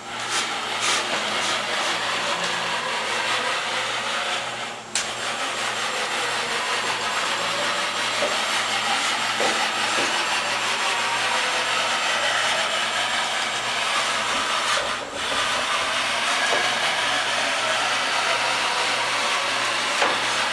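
Fadal VMC-4020 CNC vertical mill running with a loud, steady rushing hiss that starts suddenly. The hiss dips briefly twice, about five and fifteen seconds in.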